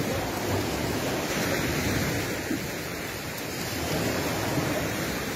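Sea waves washing steadily onto the shore, with wind noise on the microphone.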